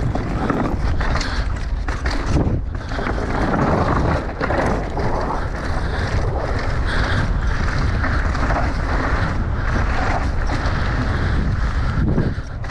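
Wind rushing over the microphone of a mountain biker's action camera, over the steady rumble of knobby tyres rolling fast on dirt and across wooden plank features.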